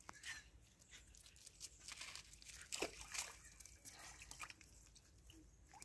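Faint rustling and scattered soft clicks of hands picking small fish out of a wet nylon cast net on brick paving.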